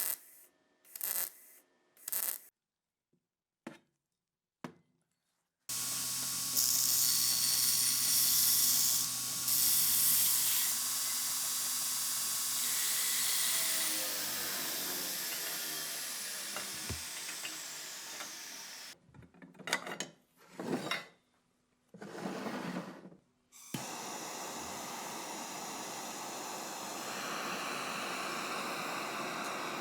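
Workshop tool work on metal parts: a few short scraping strokes, then a power tool running with a steady hiss and a falling whine partway through, more short strokes, then steady running again.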